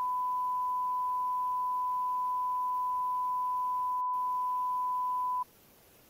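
Television colour-bars test tone: one steady, high, pure tone held unbroken, cutting off suddenly near the end.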